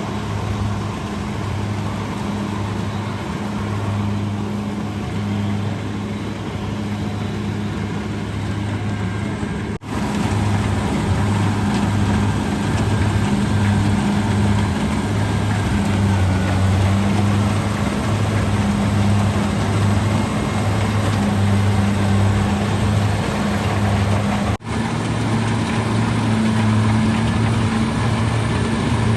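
Kubota DC-70G rice combine harvester's engine running steadily with a deep, even hum and mechanical clatter. The sound drops out for an instant twice, about ten seconds in and near twenty-five seconds.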